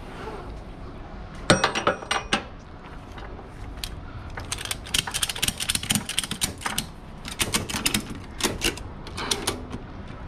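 Ratchet tie-down strap being tightened by hand: the buckle's pawl clicks in quick runs as the handle is worked back and forth. There is a loud clatter of clicks about a second and a half in, then bursts of clicking from about halfway to near the end.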